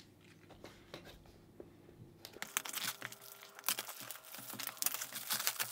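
Clear plastic shrink-wrap being torn and peeled off a cardboard box, crinkling. Only faint light clicks for the first couple of seconds, then dense crackling from about two and a half seconds in.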